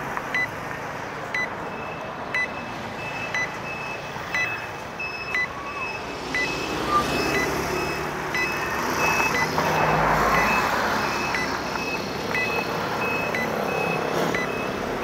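Two series of electronic street-signal beeps over steady road traffic: a short pip about once a second, joined a couple of seconds in by a higher beep repeating about twice a second. A vehicle passes about two-thirds of the way through.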